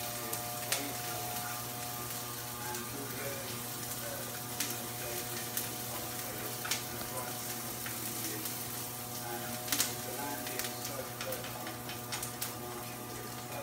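Egg with minced pork and pickled radish frying in a skillet: a steady sizzle, with a few sharp taps of chopsticks against the pan scattered through it. A steady low hum runs underneath.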